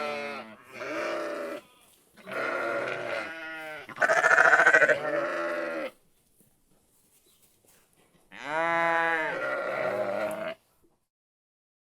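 Sheep bleating: a run of pitched bleats in close succession, the loudest about four seconds in, then a pause of about two seconds and one last long bleat that stops shortly before the end.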